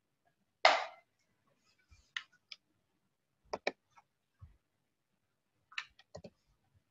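A few scattered sharp clicks and knocks, several in quick pairs, with one louder brief scuffing noise about a second in.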